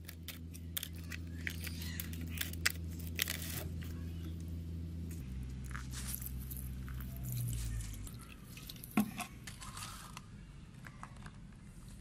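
Small rusty steel parts clicking and clattering as they are dropped into a plastic tub, then liquid poured over them and the soaking parts shuffled by hand. A steady low hum runs underneath, shifting about five seconds in and fading out after about eight seconds.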